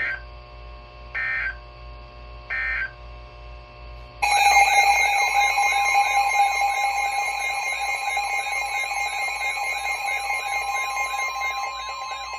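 Emergency Alert System tones. First come three short bursts of screeching digital data about a second and a half apart: the end-of-message code closing a warning. About four seconds in, the steady two-tone EAS attention signal starts and holds, announcing the next warning.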